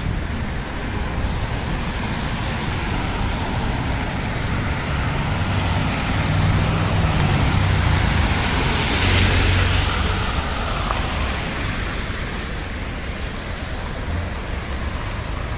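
City street traffic noise, a steady rumble of passing cars, with one vehicle passing close, loudest about nine seconds in.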